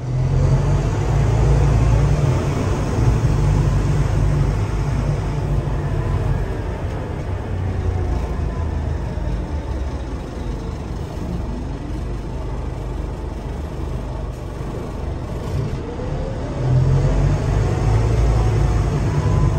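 Scania K360UA articulated bus heard from inside the passenger cabin: its nine-litre five-cylinder diesel running under way with a deep rumble, pulling harder at the start and again near the end. A faint whine glides up and down in pitch.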